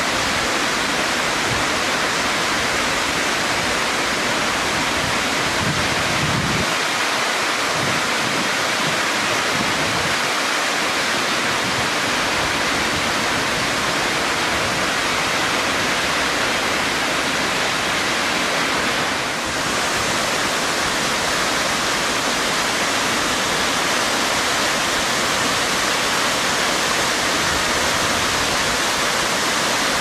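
Waterfall cascading down a rock face: a steady, unbroken rush of falling water.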